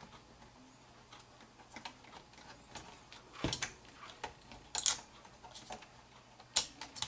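Irregular plastic clicks and taps from a Compaq LTE 5280 laptop's keyboard and case being pressed and worked into place. There is a dull knock about halfway through and sharper clicks near the end.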